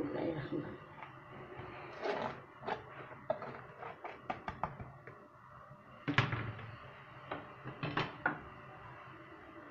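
Kitchen items being handled, including an orange perforated plastic basket: a run of light clicks and knocks about two to five seconds in, then two louder clunks about six and eight seconds in.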